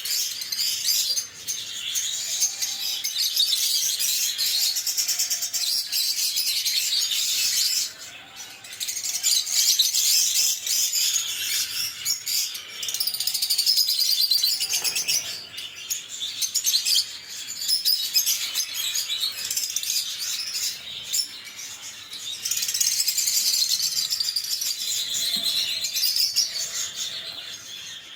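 Lovebirds chirping and chattering in a dense, high-pitched stream, with brief lulls about eight seconds in and again near twenty-two seconds.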